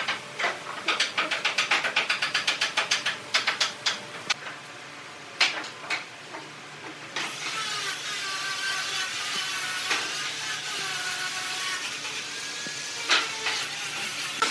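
Quick scratchy strokes of a marker pen on paper, about five a second, as lines are drawn along a metal square, with a couple of separate clicks. From about seven seconds in a steady mechanical hum with a wavering whine takes over.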